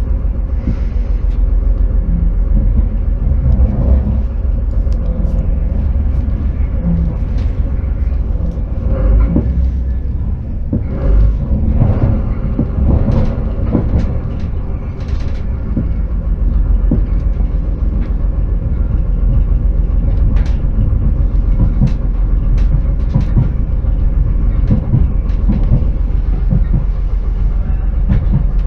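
Passenger train running at speed, heard from inside the carriage: a steady low rumble of wheels on rail with irregular clicks and knocks from the track.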